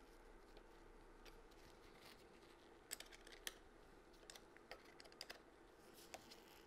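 Near silence broken by a few faint metallic clicks, a small spanner being worked on the lock nut under a radial brake master cylinder lever, starting about three seconds in and scattered over the next few seconds.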